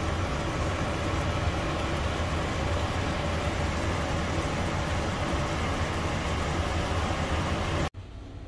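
Steady low hum with a rushing noise, which cuts off abruptly near the end.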